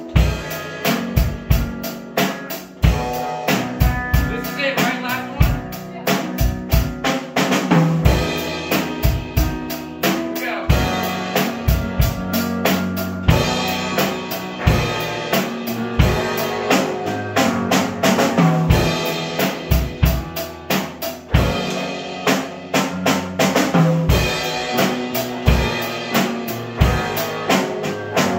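An acoustic drum kit played in a steady rock beat, with kick, snare and cymbal hits, under chords and melody from a digital piano.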